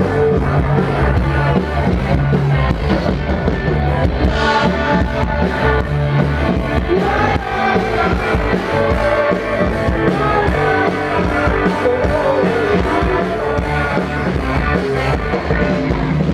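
A rock band playing live, with guitar and a sung vocal.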